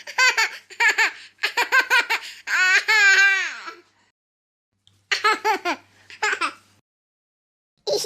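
High-pitched, silly laughter in quick rhythmic 'ha-ha' pulses, with a long squealing laugh that rises and falls in the middle. It breaks off about four seconds in, and another short run of laughter follows about a second later.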